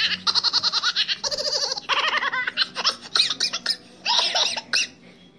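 A young girl laughing hard in several long bursts of quick, pulsing ha-ha sounds that die away near the end.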